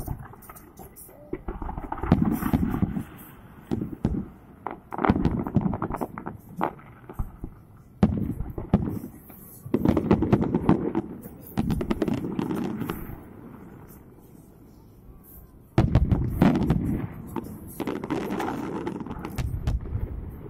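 Aerial fireworks exploding in clusters of booms and crackles, with a lull of a couple of seconds about two-thirds through before a fresh barrage.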